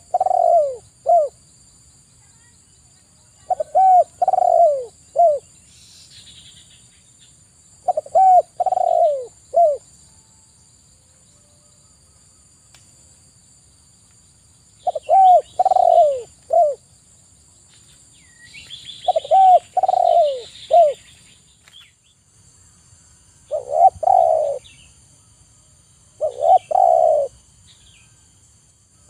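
Spotted dove cooing: seven short phrases of a few low, arching notes, a few seconds apart with a longer pause in the middle. A few brief, higher chirps come in between.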